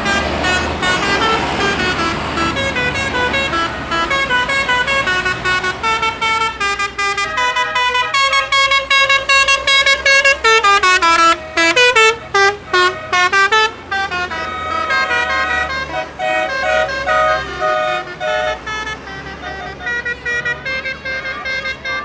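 A tune played in quick, stepped horn-like notes, with a steady low engine rumble underneath; the melody is loudest about halfway through.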